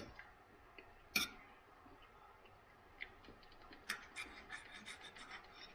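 Knife and fork clinking and scraping on a dinner plate as food is cut: a sharp clink about a second in, another near three seconds, then a quick run of light clicks over the last two seconds.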